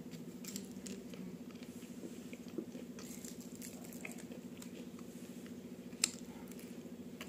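Faint close-up chewing of a person eating roti and paneer curry by hand, small wet mouth clicks throughout, with one sharp crunch about six seconds in as a raw onion ring from the salad is bitten. A steady low hum sits behind it.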